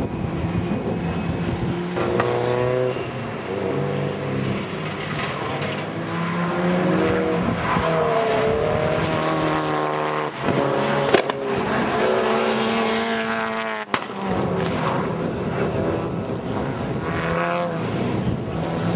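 Subaru Impreza race cars' flat-four engines running hard around the circuit. The pitch repeatedly climbs and drops with gear changes and throttle lifts, with a sudden cut near the end.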